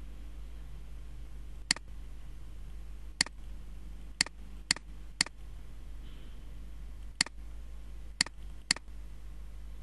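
Computer mouse button clicking eight times, single sharp clicks at uneven gaps of half a second to two seconds, over a steady low electrical hum.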